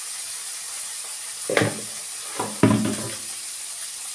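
Salmon fillet sizzling skin-side down in a frying pan, a steady hiss. Two short, loud knocks of kitchenware come about a second and a half and two and a half seconds in.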